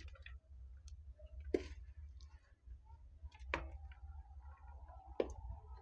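A steel spoon clinks faintly against a ceramic plate three times while serving rice, over a steady low rumble.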